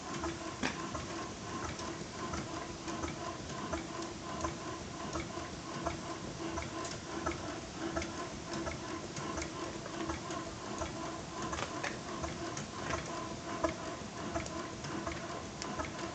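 Quick, irregular light ticking and clicking from a 4-inch scale Burrell double-crank-compound road locomotive, still hot after a day's steaming, over a steady faint hum.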